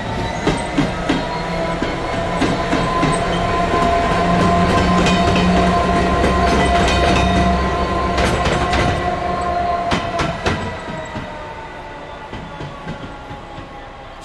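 Class 66 diesel locomotive passing, its two-stroke V12 engine running under a steady whine. It grows louder to a peak about midway, then fades and dips slightly in pitch as it draws away, with wheels clicking over rail joints.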